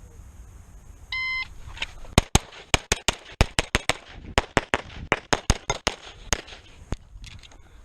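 A shot timer beeps once, then a Beretta 92 Elite LTT 9mm pistol fires a rapid string of about twenty shots over roughly five seconds.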